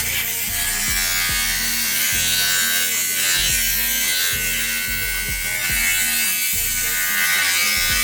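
Hip-hop background music between vocal lines, with deep bass notes that slide in pitch, over a steady high buzz.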